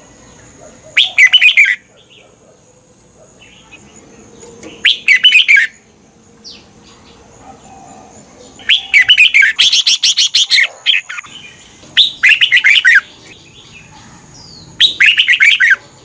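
Red-whiskered bulbul singing: five short, loud song phrases a few seconds apart, the middle one longer at about two seconds.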